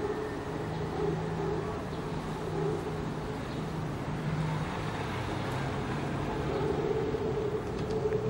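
Street traffic noise with a steady mechanical drone underneath.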